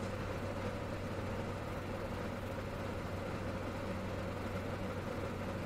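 Steady low hum of a parked car idling, heard from inside the cabin.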